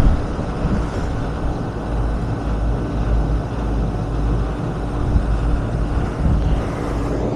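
Rooftop commercial HVAC unit running: a steady machine hum over a low rumble.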